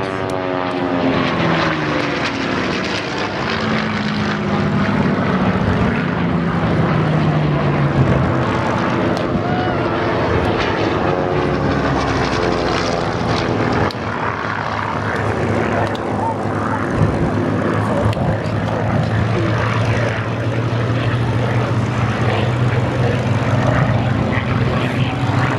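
Piston-engined propeller fighter aircraft flying a display pass. The engine note falls in pitch over the first few seconds as a plane goes by, then settles into a steady drone.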